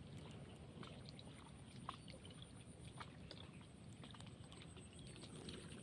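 Near silence: a faint low rumble with scattered small clicks and a thin, steady high whine.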